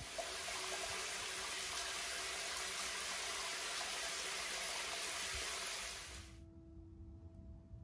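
Shower water spraying down steadily into a plastic basin of water, stopping abruptly about six seconds in. Soft background music plays underneath.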